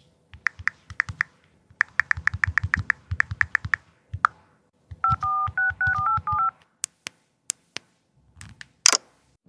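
Rapid typing clicks for about three and a half seconds, then a quick run of about nine telephone keypad touch tones. A few single sharp clicks and a short swoosh follow near the end.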